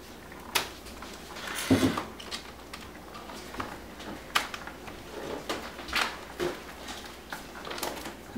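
Scissors snipping at a plastic bag of frozen blueberries, with the plastic crinkling. A few sharp clicks are spread through it, and the loudest rustle comes about two seconds in.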